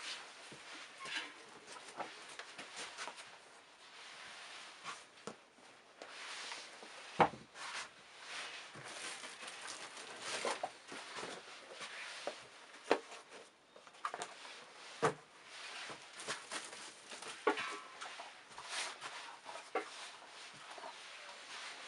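Shoes being handled and set down on a table: scattered soft knocks of soles landing, with rustling between them.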